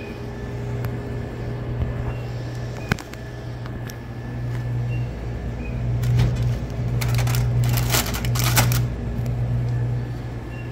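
Plastic chip bags crinkling as they are straightened in a vending machine's spiral coils, loudest about six to nine seconds in. Under it runs a low steady hum, with a few light clicks in the first three seconds.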